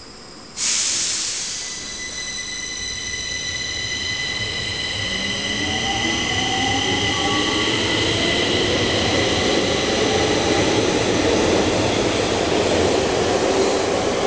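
Stockholm metro train pulling out of the station: a sudden hiss about half a second in, then a steady high whine, joined from about five seconds in by motor tones rising in pitch, louder as the train accelerates away.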